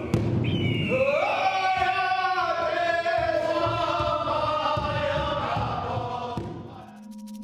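Intro music of chanting voices in long, sliding notes, several layered together over a low pulsing beat, fading out near the end.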